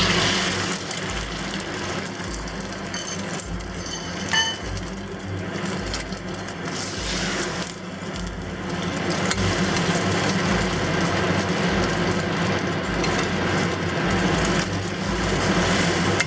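Beaten eggs frying in a generous amount of hot oil in a pan, with a continuous sizzle as they are stirred toward a soft scramble. A single ringing metal clink sounds about four seconds in.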